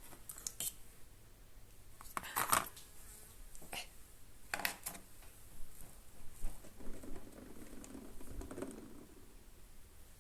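A few scattered light clicks and knocks, one every second or two, with a soft rustle between about seven and nine seconds in.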